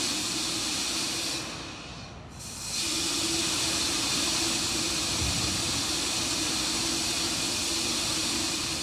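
Steady hiss with a steady low hum from the rocket launch pad's live audio feed in the last seconds before the countdown. About a second and a half in, the hiss thins and dips for about a second, then returns.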